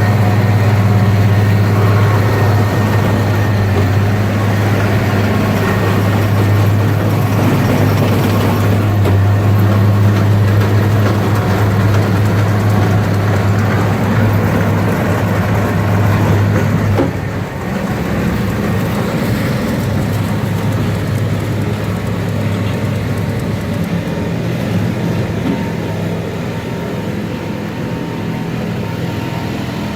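A machine engine running steadily at high revs, with a strong even drone. About seventeen seconds in, the sound shifts abruptly and runs on somewhat quieter.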